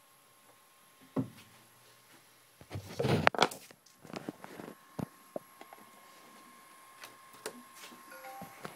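Handling noise from the camera being picked up and moved: a thump about a second in, a loud burst of rubbing and knocking around three seconds in, then a scatter of sharp clicks and taps.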